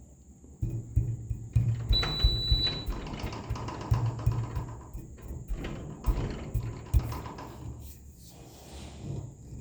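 Low rumbling with irregular knocks, and a short high beep from the building's fire alarm about two seconds in.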